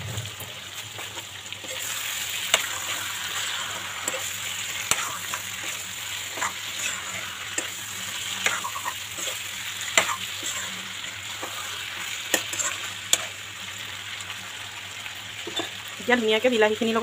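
Chicken and tomato masala sizzling in a steel wok, stirred with a steel spatula that scrapes and clicks against the pan again and again.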